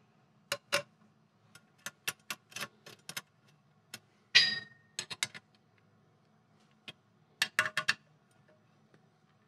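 Hand ratchet clicking in short runs as short M6 bolts are snugged into a steel engine-to-transmission cover plate. A single ringing metal clink comes about four and a half seconds in.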